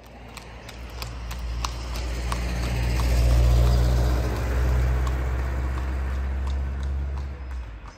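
Horse's hooves clip-clopping at a walk on an asphalt road as a horse-drawn cart moves off. Beneath them a motor vehicle's engine hums, swelling to its loudest about halfway and fading out near the end.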